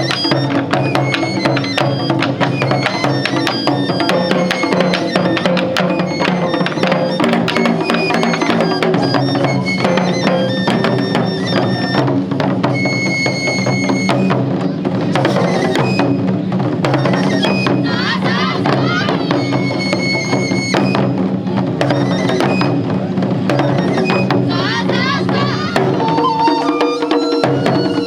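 Japanese taiko drum ensemble playing: many fast drum strikes and sharp wooden clicks over steady held pitched tones.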